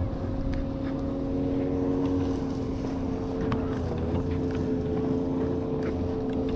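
A boat motor humming steadily at an even pitch, with a brief waver about four seconds in and a few faint ticks.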